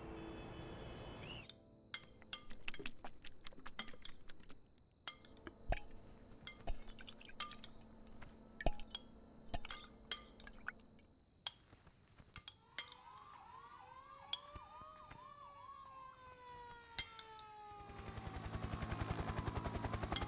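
Faint night-time city ambience: scattered sharp clicks, then a distant police siren about two-thirds of the way in, wailing and yelping up and down in pitch. Near the end a louder rush of noise with a fast pulse swells up.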